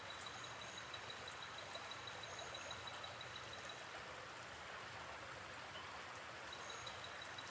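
Faint steady hiss of background noise, with a fast, even high-pitched pipping about five times a second that stops about three seconds in and returns near the end, and a few short high chirps.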